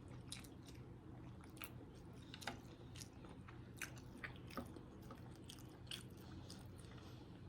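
Faint close-up chewing of a sausage, egg and cheese biscuit: soft, scattered wet mouth clicks, about a dozen, over a low steady hum.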